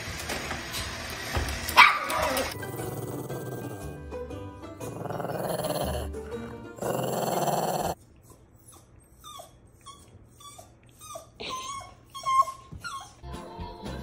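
Small dogs growling and yipping, with a quick run of short, high, rising yelps in the second half.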